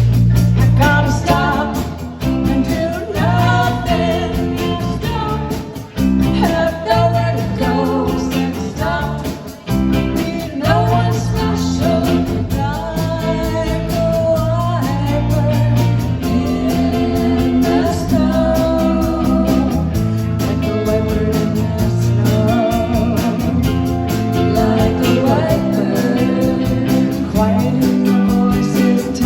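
Live band playing a song, with a singer's voice over guitar.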